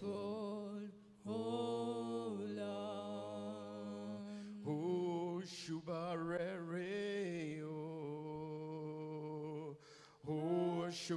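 A singer sings a slow worship song in long, drawn-out notes. There are short breaks for breath about a second in and again near the end.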